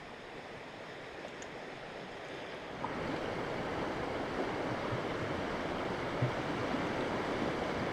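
Rushing river water, a steady noise that grows louder about three seconds in.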